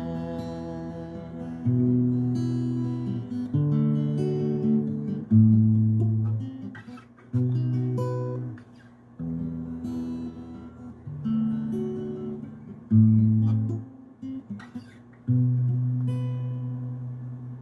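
Acoustic guitar playing an instrumental ending: a slow run of chords, each struck and left to ring, the last one coming about three-quarters of the way in and fading out.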